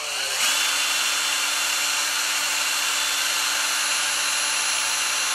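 Cordless drill spinning up in the first half second, then running at a steady speed with a constant whine and hiss, as it drives an empty spool that strips nylon monofilament line off a fishing reel.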